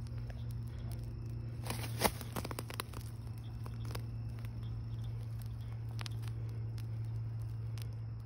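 Molten aluminum pouring into a fire ant mound, crackling and popping as the hot metal meets the soil: a quick run of pops about two seconds in, then a few single pops. A steady low hum runs underneath.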